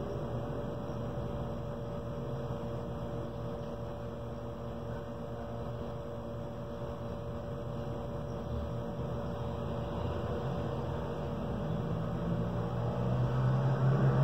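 Steady background hum with a faint hiss, a low drone growing louder near the end.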